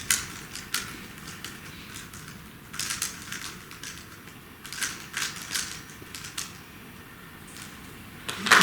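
A hushed hall with scattered sharp clicks and rustles, then audience applause breaking out suddenly near the end.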